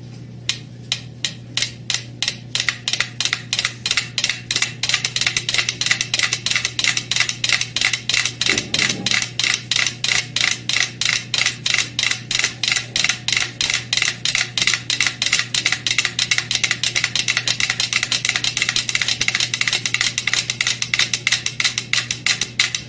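Five mechanical pendulum metronomes ticking together. They are started one after another, so the sparse clicks thicken into a dense, uneven clatter. The shared board rocking on two drink cans gradually pulls the ticks toward a common beat.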